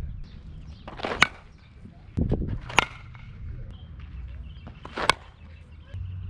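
Softball bat striking tossed balls during batting practice: three sharp hits, about a second and a half to two seconds apart.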